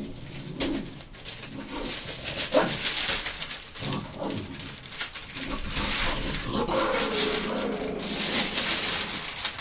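Christmas wrapping paper crinkling and tearing as a gift box is unwrapped, with a dog's noises mixed in.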